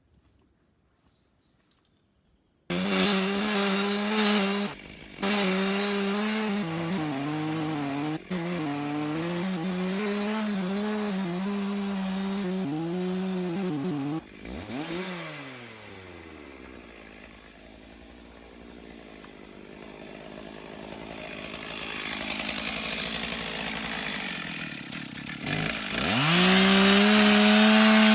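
Stihl chainsaw with a 28-inch bar cutting into a huge Douglas fir log, starting abruptly about three seconds in, its pitch dipping and recovering as the bar loads up in the wood. About halfway through the throttle is released and the engine drops to a low idle, then it is revved back up to full speed near the end.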